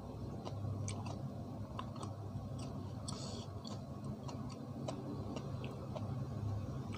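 Close-up eating sounds: a person chewing with small, irregular wet mouth clicks and smacks over a low steady hum, with a brief hiss about three seconds in.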